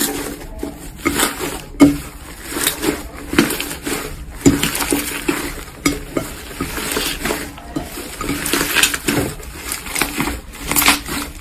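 Slime being squeezed and pressed by hand, giving a dense run of irregular sticky clicks and small pops.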